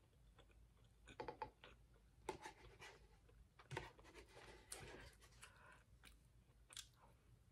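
Faint scraping and clicking of a metal spoon in a paper instant-noodle cup as the last noodles are scooped out, a few short sounds spread over several seconds, with quiet chewing.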